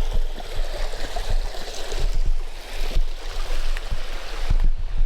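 Water of a creek and small waterfall rushing steadily, with irregular low thumps and rumbling from wind or handling on the microphone.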